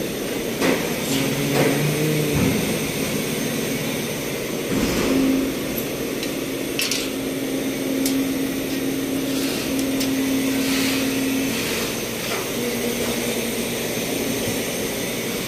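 Steady mechanical noise of plastic bottle-making machinery, with a hum that comes and goes in the middle and a few short clicks and knocks.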